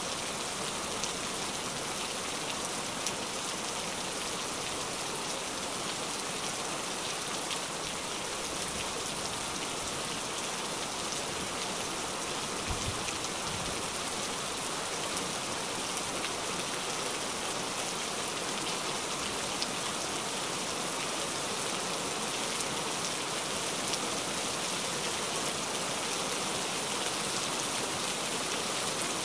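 Heavy rain falling steadily, a dense even hiss of drops on surfaces.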